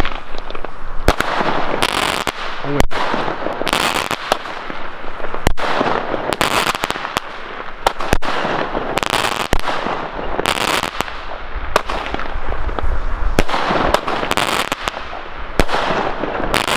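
Alba Feuerwerk 'Aeon' mini fireworks battery firing shot after shot: sharp launch bangs as silver-tailed comets rise, each breaking into a strong cloud of crackling stars, a new crackle every second or two.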